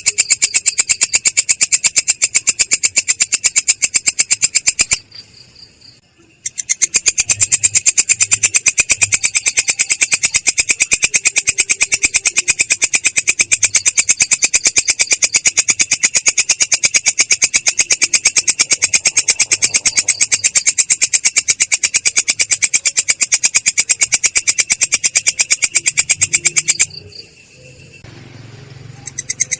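Insect chirping: a rapid, perfectly even string of high, shrill pulses that stops twice for about two seconds.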